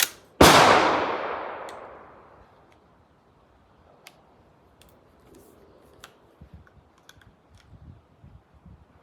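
A single gunshot about half a second in, ringing out and fading over a couple of seconds. Then a run of small metallic clicks as .357 Magnum cartridges are pushed through the loading gate of a new Rossi R92 lever-action rifle, going in a little rough because the rifle is still breaking in.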